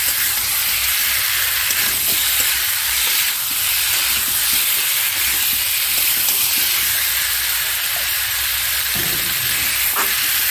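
Fried potato pieces sizzling in hot oil and spice paste in a kadai while being stirred with a spatula: a steady frying hiss with a few light scrapes of the spatula against the pan.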